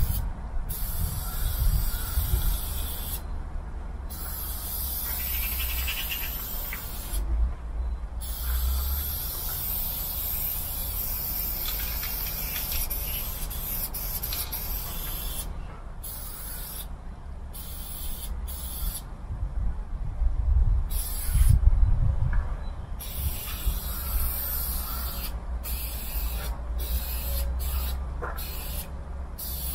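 Aerosol spray paint can hissing as paint is sprayed onto a railway wagon. It runs in long sprays broken by brief stops, and the bursts turn shorter and more frequent toward the end.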